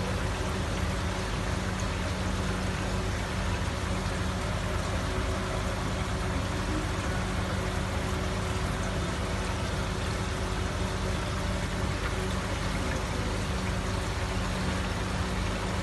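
Steady rush of water circulating in a live fish tank, with a steady low hum from the tank's pump.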